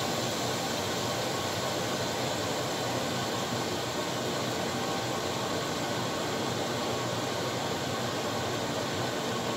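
Steady hissing and bubbling of flour-dredged chicken boiling hard in water in a lidded skillet, the water newly added to the hot pan for gravy.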